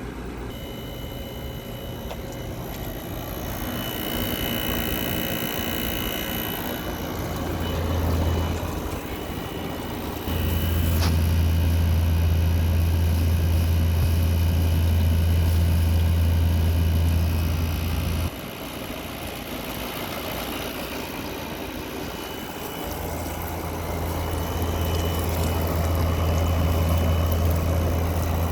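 2024 Midea 5,000 BTU window air conditioner running with a steady hum from its compressor and fan. A much louder low hum comes on abruptly about ten seconds in, cuts off suddenly about eight seconds later, and swells back near the end.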